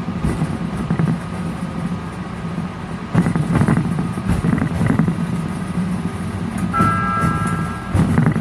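Miniature ride-on train running slowly along its track: a steady low hum with scattered clicks and knocks. Near the end a beep is held for about a second, followed by a sharp click.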